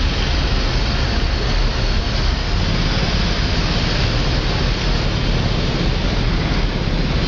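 Steady city traffic noise, an even rumble and hiss with no distinct events standing out.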